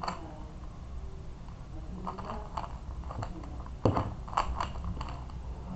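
Rubik's cube being twisted by hand: irregular plastic clicks and clacks as the layers turn, in small clusters, the loudest about four seconds in.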